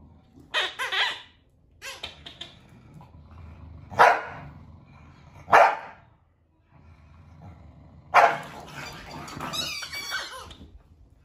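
Corgi barking in sharp, separate barks: a quick pair near the start, single loud barks about four and five and a half seconds in, then a longer run of barking about eight seconds in.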